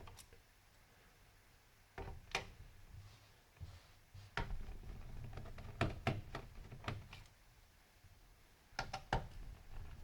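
Scattered clicks and light knocks of a screwdriver and hands working on the plastic underside of an Asus F3S laptop as its perimeter screws are unscrewed, with a quick cluster of clicks near the end and quiet spells between.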